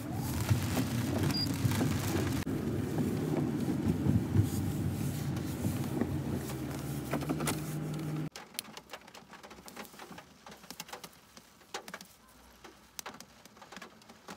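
A car running at a standstill, heard from inside the cabin as a steady hum, cuts off abruptly about eight seconds in as it is switched off. After that only faint scattered clicks remain.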